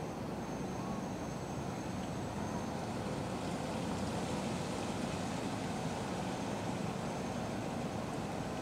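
Steady low outdoor background rumble, such as distant traffic or wind, with no calls from the nestlings. A faint thin high whine comes in about half a second in, fades out near the three-second mark and returns near the end.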